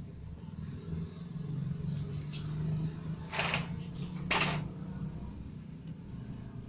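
Handling noise from a CRT TV circuit board being settled on a paper sheet on a workbench: two short scrapes or knocks about a second apart near the middle, over a low steady hum.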